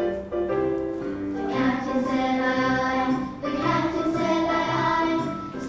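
A recorded phonics song for the "ie" sound: voices singing a melody over an instrumental backing with a steady beat.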